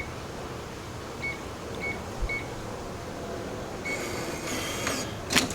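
Touch keypad of an AmazonBasics electronic deadbolt beeping once for each key press, five short high beeps, as a user code is entered. Near the end the lock's motor whirs for about a second as it throws the bolt to unlock, followed by a couple of sharp clunks.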